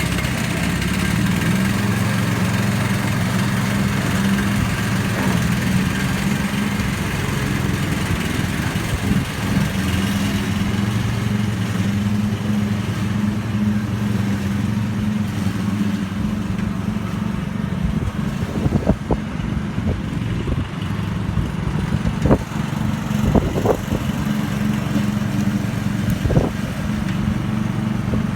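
Ride-on lawn mower engine running steadily while mowing grass, with a few short sharp knocks in the second half.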